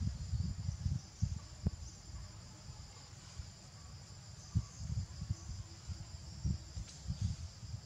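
Steady high-pitched insect chirring from the forest, with irregular low thumps and rumbles and a few faint clicks.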